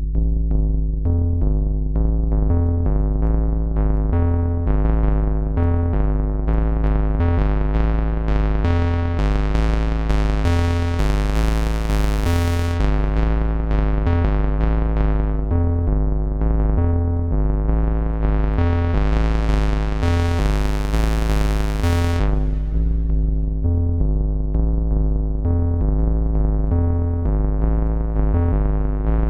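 Moog Subharmonicon analog synthesizer playing a repeating sequenced bass pattern with its subharmonic tones. Its sound brightens twice as the filter opens, then turns dark again suddenly.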